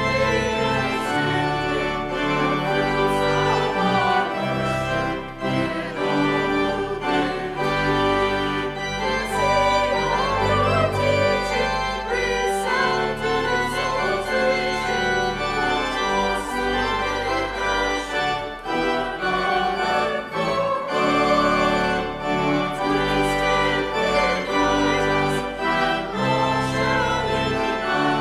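Pipe organ playing a hymn in sustained chords, with a small choir singing along.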